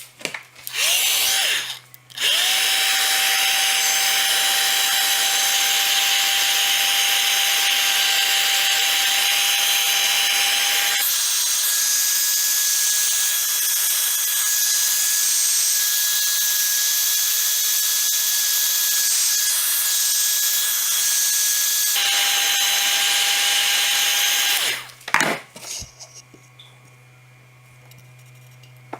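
Electric power tool motor running: a brief burst about a second in, then a quick spin-up into a long steady whine. The pitch jumps higher abruptly about 11 s in, drops back about 22 s in, and the motor stops about 25 s in, followed by a few sharp knocks.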